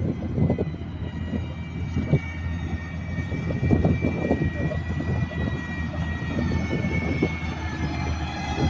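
XCMG GR215 motor grader's diesel engine running under load as the blade pushes wet sand, with a steady low hum and a high whine above it.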